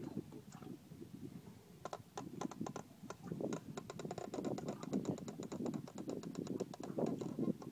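Fishing reel clicking rapidly on a rod fighting a large halibut, a regular run of about ten ticks a second that starts about two seconds in and stops near the end, over a low rumble.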